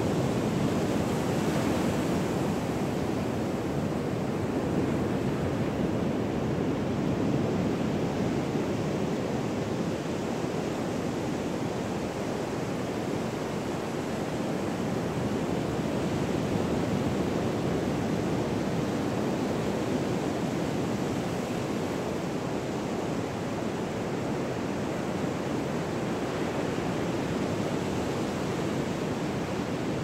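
Ocean surf washing onto the beach: a steady rushing wash that swells and eases slowly.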